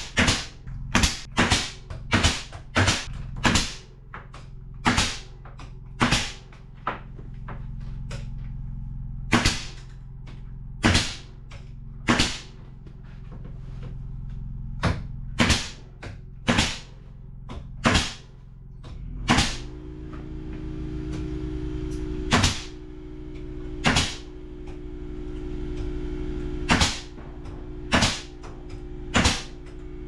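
Pneumatic nail gun shooting nails into wooden door-jamb trim: dozens of sharp shots at irregular intervals, some in quick pairs, over a steady low hum.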